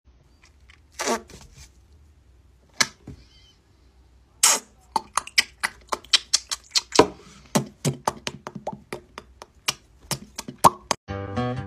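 A man making a rapid string of deliberate mouth pops and lip smacks, sharp clicks several a second, after a few scattered single pops.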